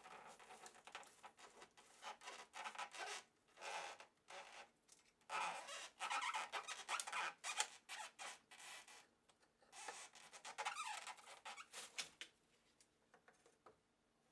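Hand-worked disassembly of the Fluke 732A voltage reference: irregular bursts of squeaky rubbing and scraping as parts are worked apart, loudest around the middle and again a little later, dying away near the end.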